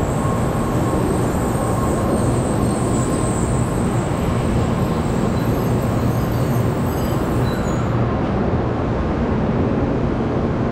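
N700 series 7000-number Shinkansen train rolling slowly along the platform as it arrives and brakes, a steady low rumble of wheels and running gear.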